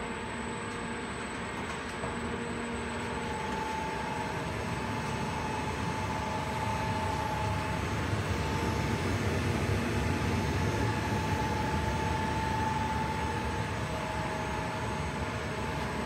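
Control-cabinet air-conditioning unit running: a steady hum and fan noise with a low rumble and a few held tones that fade in and out.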